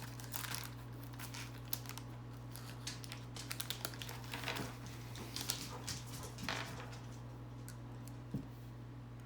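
A candy packet being handled and opened, crinkling in irregular small crackles and clicks that thin out over the seconds, over a steady low hum.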